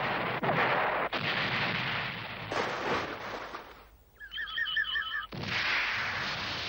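Cartoon explosion sound effects: a rumbling blast with several sharp cracks that fades away, then a short warbling beep repeated about five times, then a sudden new explosion bursting in about five seconds in and rumbling on.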